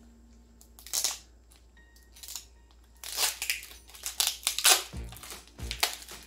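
Brown paper wrapping on an orchid pot crinkling and tearing as it is pulled open, a couple of single rustles and then a quick run of scrunches about three seconds in. Background music plays underneath.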